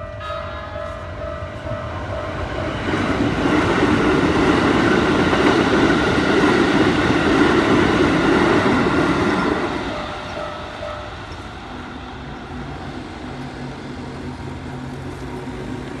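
Japanese level-crossing warning bell ringing over and over as a red Keikyu electric commuter train passes at speed. The train's rumble is loud from about three seconds in to about ten seconds in. The bell stops soon after the train has gone, leaving a low steady hum.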